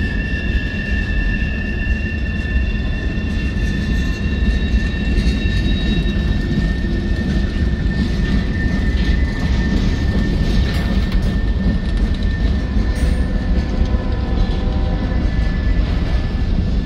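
CSX manifest freight train's boxcars and covered hopper cars rolling past with a steady low rumble of steel wheels on rail, over a steady high metallic squeal.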